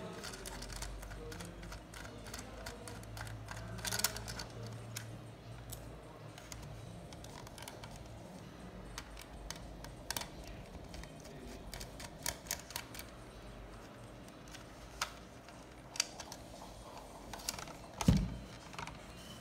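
Small screwdriver clicking and scraping against the plastic base of a PC speaker as its screws are undone, irregular light clicks. A louder plastic knock about 18 seconds in as the speaker's base is pulled free and moved.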